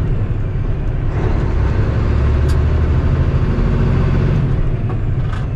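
Diesel engine of a heavily loaded semi truck running steadily under load, heard from inside the cab as the truck drives along.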